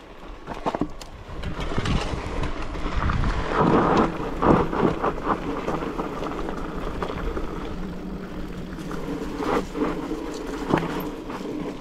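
Mountain bike riding over a rough trail: wind rumbling on the microphone and tyre noise, with scattered clicks and knocks from the bike.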